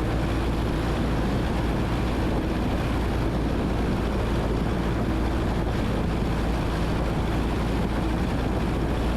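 Steady drone of a 1977 Cessna 172N's engine and propeller in flight, heard from inside the cabin, with an even level throughout.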